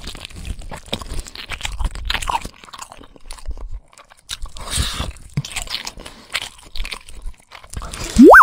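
Cartoon eating sound effects: rapid, irregular crunching and chomping as a character gobbles a table of food. Just before the end a loud pitched tone glides sharply upward.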